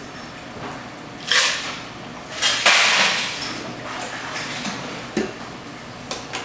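Bar work with a metal cocktail shaker and ice: the shaken drink is strained into a glass, then a few loud rattling bursts of ice and metal, the loudest about three seconds in, and several sharp clinks near the end.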